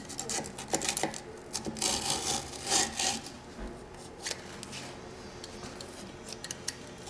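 Knife blade cutting through abrasive scooter grip tape along the deck's edge: scratchy rasping strokes, loudest in the first three seconds, then quieter scrapes and a few small clicks.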